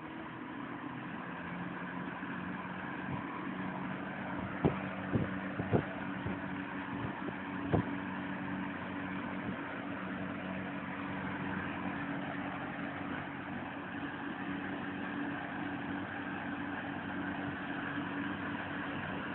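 1970s Manning Bowman single-speed box fan running smoothly: a steady rush of air over an even motor hum. A few sharp knocks come between about five and eight seconds in.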